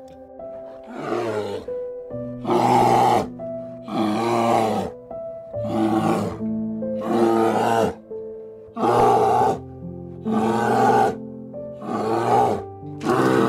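Brown bear roaring about nine times, one rough call roughly every one and a half seconds, over gentle background music.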